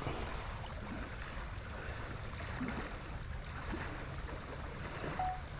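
Steady rush of a shallow, fast-flowing stream running over gravel.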